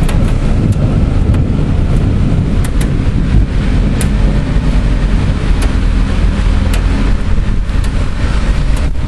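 Heavy storm wind and rain making a loud, steady rumbling rush, with the wind buffeting the microphone and scattered sharp ticks like drops or hailstones striking nearby.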